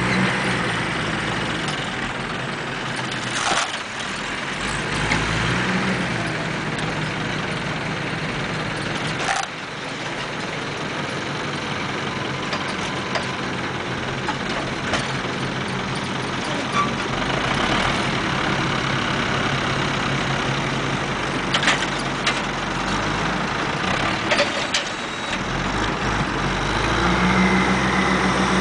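Tractor engine running steadily while a tractor-mounted round bale wrapper loads a haylage bale onto its wrapping table, with a few sharp clanks from the machine. The engine note grows stronger near the end.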